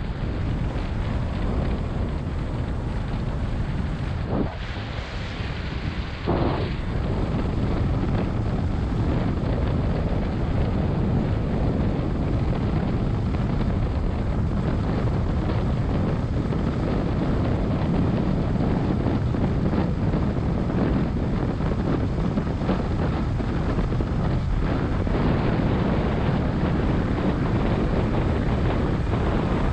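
Wind buffeting the microphone over the steady engine and road noise of a pickup-truck taxi, heard from its open rear bed as it drives.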